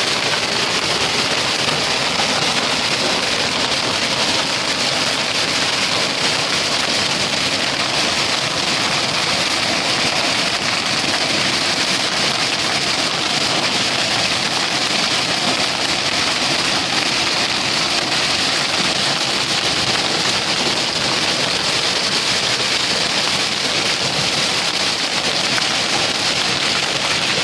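Heavy hailstorm: hail and rain pelting a paved street and the walls around it in a dense, steady hiss that holds at one level throughout.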